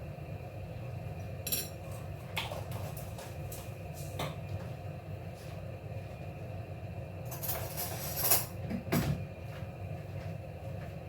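A spoon clinking and scraping against a pan while stirring roasting soya beans: scattered single knocks, then a denser run of scraping and clattering about two-thirds of the way through, over a steady low hum.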